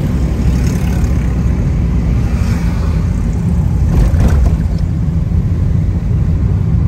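Steady low rumble of a car's engine and tyres, heard from inside the cabin while driving, swelling briefly about four seconds in.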